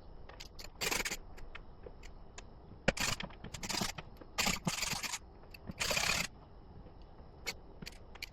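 Short scrapes and clicks of hands working electrical parts back together at a wall box: about five brief scraping rasps in the first six seconds, with scattered sharp clicks throughout.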